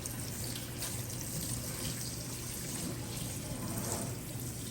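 Water from a shower running steadily, an even rush of spray without breaks.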